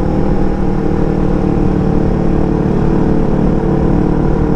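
Yamaha R25 sport bike's 250 cc parallel-twin engine and exhaust running at a steady pitch while cruising, heard from the rider's seat.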